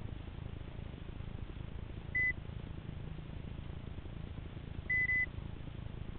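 Short, high electronic beep about two seconds in, then a quick double beep about five seconds in, over a steady low rumble.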